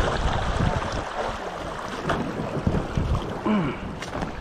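Shallow stream water rushing and splashing over rocks in a riffle, with wind buffeting the microphone in low, uneven thumps.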